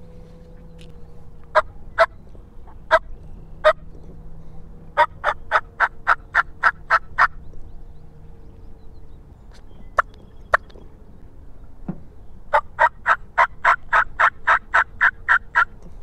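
Hand-held turkey call worked in a series of yelps to see whether a wild turkey answers: four spaced notes, then a fast run of about ten, two more single notes, and a longer fast run of about a dozen near the end.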